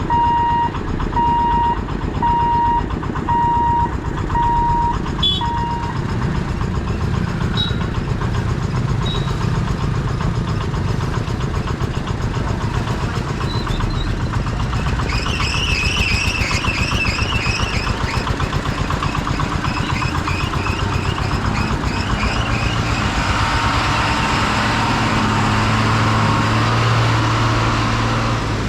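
Railway level-crossing warning beeper sounding in repeated beeps of one pitch for about the first six seconds, then a train running through with a steady rumble and a fast, even clatter that builds toward the end. A wavering high-pitched tone rises over it for a few seconds about halfway through.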